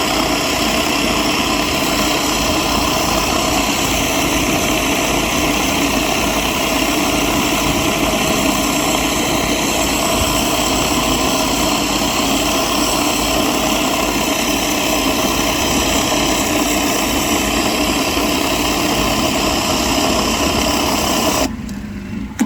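Craftsman gas pressure washer running steadily, driving a Surfacemaxx rotary surface cleaner that sprays over concrete. The sound drops away abruptly near the end.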